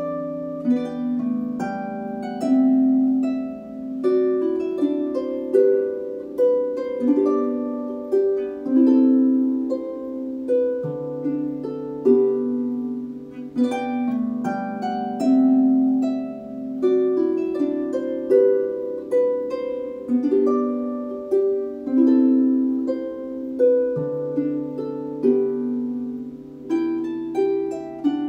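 Solo lever harp (a Dusty Strings FH36S) playing a gentle, unhurried melody: plucked notes ringing out one after another over low notes held for several seconds at a time.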